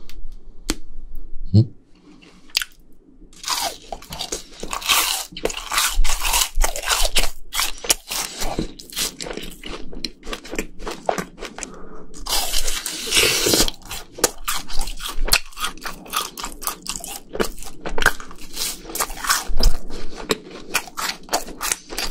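Close-miked eating of fried chicken and cheese balls: crisp crunching bites and chewing, a dense crackle of small clicks, with the loudest crunches about three to five seconds in and again around twelve to fourteen seconds.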